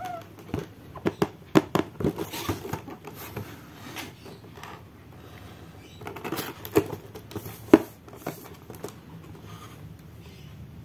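Hands handling and turning a cardboard toy box, with fingers tapping and scraping on the cardboard. The sharpest taps come in clusters in the first couple of seconds and again around seven seconds in.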